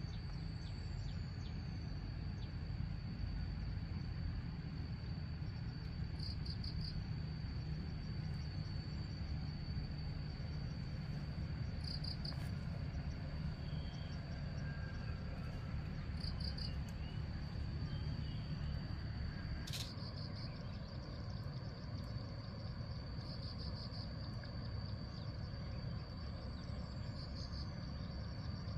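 Insects calling: a steady high-pitched shrill, with a short pulsed trill every four to six seconds, over a steady low rumble. A single sharp click comes about two-thirds of the way through.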